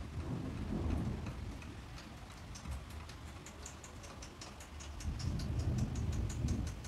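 A paper cupcake liner crinkling in a fast run of small dry clicks as it is peeled off a sponge cupcake, with dull low bumps from the food being handled close to the microphone near the start and again after about five seconds.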